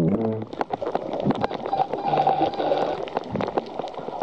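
Spinner dolphins heard underwater: a dense scatter of clicks with a few short buzzing pulsed calls, one right at the start and another about two seconds in.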